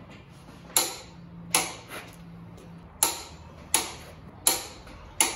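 Click-type torque wrench set to 120 ft-lb clicking as it reaches torque on the flywheel bolts: six sharp metallic clicks, roughly a second apart.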